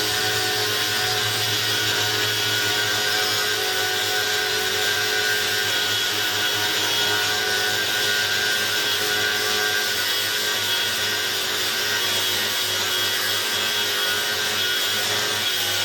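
Angle grinder running steadily, a dense grinding rasp over the motor's steady whine, with no break or change in level.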